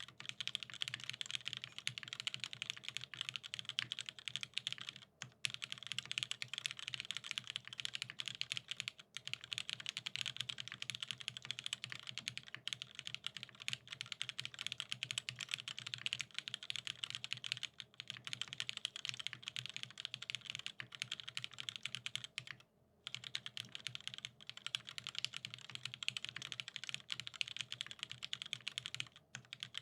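Dense, rapid clicking with a few short pauses, over a low steady hum.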